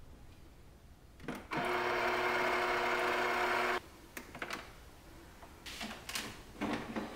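Krups Quattro Force bean-to-cup espresso machine running a rinse: a loud, steady mechanical buzz for about two seconds that cuts off suddenly. Near the end, plastic clicks and knocks as the drip tray is handled.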